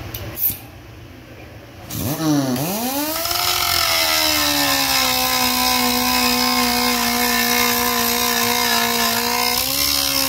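Gison GP-919H 7-inch pneumatic vertical grinder: a short knock about half a second in, then about two seconds in the air motor starts with a rising whine that dips briefly before settling. It then runs steadily with a whine and a grinding hiss as the wheel grinds a metal plate, the pitch lifting slightly near the end.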